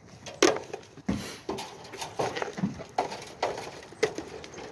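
Goats eating vegetable stir fry: irregular crunching and chewing with knocks and clicks, the sharpest knock about half a second in.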